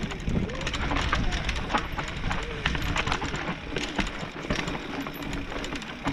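Mountain bike rolling slowly down a rough dirt forest trail: tyre noise on dirt, with frequent sharp clicks and knocks from the bike rattling over roots and stones, and a low wavering hum.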